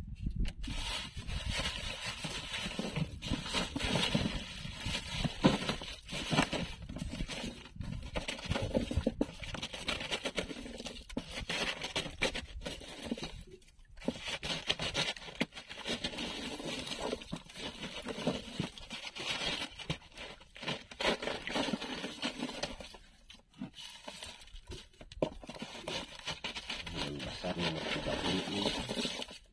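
Wind and water noise around a small boat at sea: an uneven, rising and falling rush with no steady tone.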